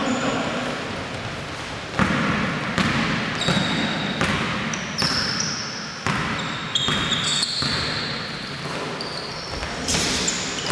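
Basketball game on a hardwood gym floor: the ball bouncing and thudding, with sharp hits about every four seconds and short high sneaker squeaks, all echoing in a large gym.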